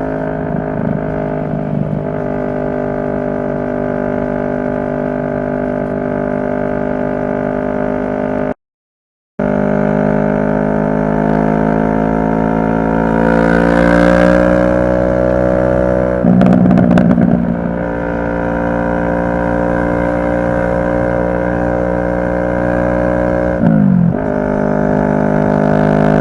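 CFMoto 650NK parallel-twin engine running under way, a steady drone. The sound cuts out completely for about a second a third of the way in. Midway the pitch climbs steadily as the bike accelerates, and there is a short falling dip near the end.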